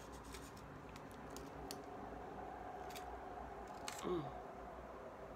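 Faint close-up eating sounds: small mouth clicks and chewing on a chicken burrito. About four seconds in, a short low hum falls in pitch as she bites into it.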